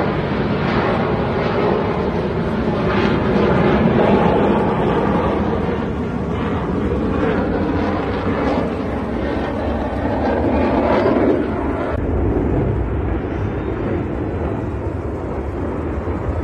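Jet aircraft flying past, with a loud, steady rush of jet engine noise that swells twice and drops off suddenly about eleven seconds in.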